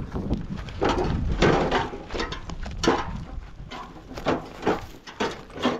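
An irregular series of knocks and scrapes, about one or two a second.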